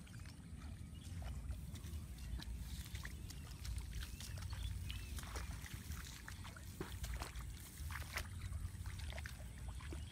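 Bare feet wading through shallow water in a flooded rice paddy: irregular splashes and sloshes with each step, over a steady low rumble. Faint short chirps sound in the background.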